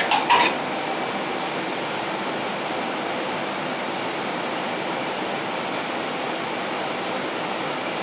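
KERR oil furnace running with its oil burner firing: a steady, even rushing noise. Two or three sharp clicks come right at the start.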